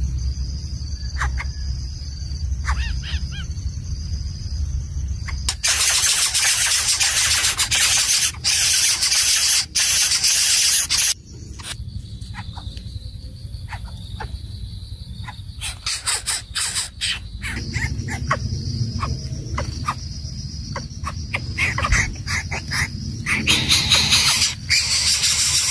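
Greater coucal nestling giving harsh, loud squealing hisses in long stretches, with gaps between. At the start, insects chirp in a steady pulse over a low hum.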